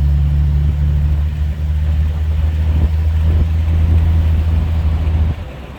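A 1967 Rambler American's 199 cubic-inch AMC inline six running under way, a steady low drone that drops off suddenly near the end. It pulls with no off-idle bog now that the vacuum leak from a cracked phenolic carburetor spacer is repaired.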